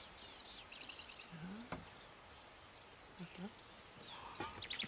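Quiet outdoor ambience with scattered bird chirps and short trills, and a couple of faint clicks.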